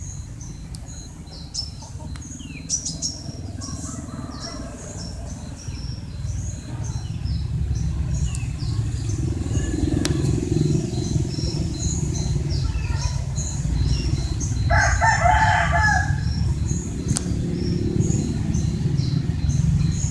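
Small birds chirping over and over with short high notes, and a rooster crowing once for just over a second about three-quarters of the way through, over a steady low rumble that grows louder.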